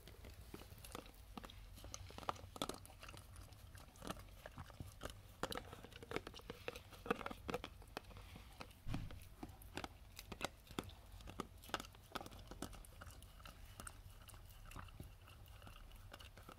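Patterdale terrier gnawing and licking at a peanut butter jar to get into it: an irregular run of small clicks, scrapes and crunches of teeth on the jar, busiest around the middle.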